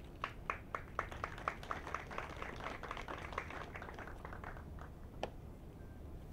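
A few people clapping at about four claps a second, thinning out and dying away after about four and a half seconds, with one last clap about five seconds in.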